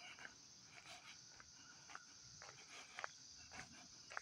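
Quiet: soft footsteps on a paved road, about two a second, over a steady high chirring of insects.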